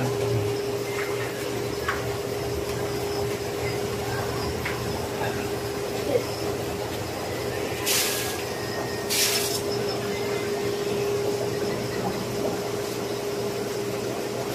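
Steady hum and hiss of aquarium air pumps and filters running in a shop full of fish tanks, with two short bursts of hiss about eight and nine seconds in.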